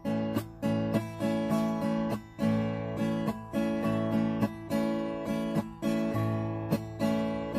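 Fender Sonoran solid-top dreadnought acoustic-electric guitar strummed in a slow ballad rhythm, a stroke about every half-second to second, with the chords ringing between strokes and a chord change about six seconds in.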